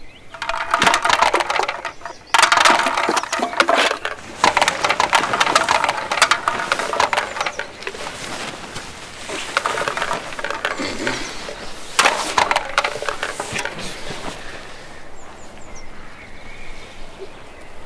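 Nylon tent fabric rustling and crackling as it is pushed and pulled, in several bursts of crinkly noise a second or two long.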